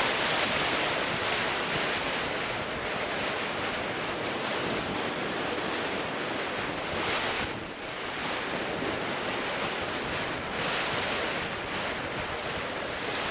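Strong wind and choppy sea rushing past a small racing sailboat beating upwind in about 15–16 m/s of wind, with waves washing along the hull and wind buffeting the microphone. A louder rush comes about seven seconds in.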